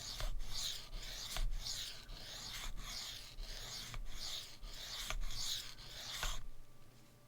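Steel knife blade stroked back and forth on a Sharpal 162N diamond sharpening plate, a rhythmic scraping at about two strokes a second that stops about six seconds in. These are reprofiling strokes, raising a burr along the edge.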